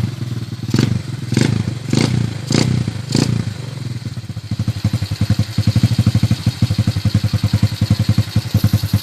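Motorcycle engine breathing through an Apido aftermarket exhaust, a standard-length pipe with a large outlet. The throttle is blipped five times in quick succession, then the engine settles into a steady idle with an even, loud exhaust pulse.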